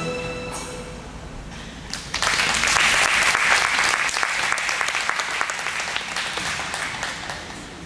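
Audience applauding. It breaks out about two seconds in and is loudest just after, then slowly dies down. Just before it, the last held note of the skating music fades out.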